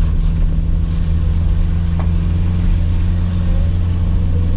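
Car driving, with a steady low rumble of engine and road noise and a brief click about two seconds in.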